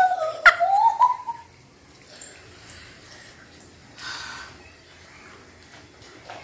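A person's high-pitched wordless vocal sound, wavering up and down for about the first second and a half, then quiet with only faint small sounds.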